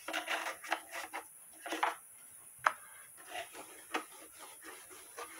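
A small brush and a hand rubbing furniture oil into a carved wooden cuckoo clock case in a run of short strokes. A sharp knock comes about two and a half seconds in, and a smaller one about a second later.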